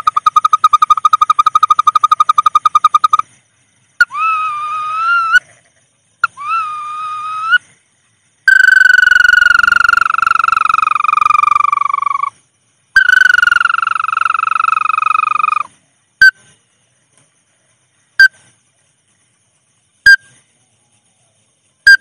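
Lure-call recording of the paddy-field bird called "bawangan sawah". It opens with a rapid trill, gives two short wavering calls that rise at the end and two long whistles that fall slowly in pitch, then short single chirps about every two seconds.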